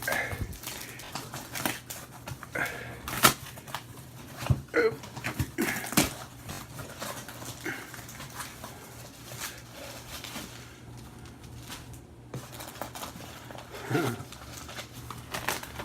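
Packaging and its contents being handled by hand: scattered clicks and knocks, the sharpest about three and six seconds in, with a few brief vocal sounds.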